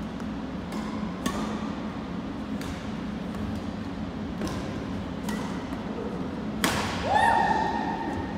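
Badminton rackets striking a shuttlecock in a doubles rally: sharp separate cracks about a second apart, echoing in a gym. Near the end a loud, held, high-pitched squeal lasts about a second, over a steady low hum.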